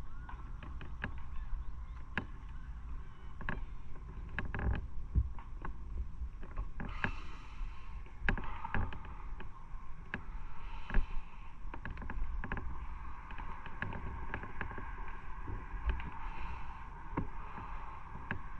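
Motorcycle on the move: a steady low engine and road rumble, broken by many short sharp knocks and rattles, with a brief rush of hiss about seven seconds in.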